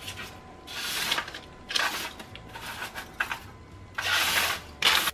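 Parchment paper rustling and crinkling in a series of short bursts, about one a second, as a hand moves and sets down pieces of raw cookie dough on a lined baking sheet.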